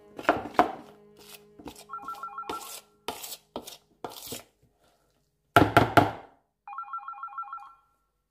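Hands squishing and mixing a wet egg and gram-flour batter in a plastic bowl, a run of short wet clicks with a louder cluster of knocks about five and a half seconds in. A phone's electronic ringtone trills briefly twice, around two seconds in and again near the end.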